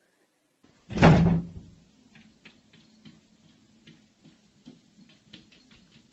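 A single loud thump or bang about a second in, dying away quickly, followed by faint scattered clicks and taps.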